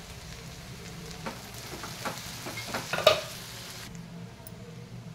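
A metal slotted spoon stirring okra and peanut fry in an aluminium pot, scraping and clinking against the pot a few times, the loudest about three seconds in, over a faint sizzle.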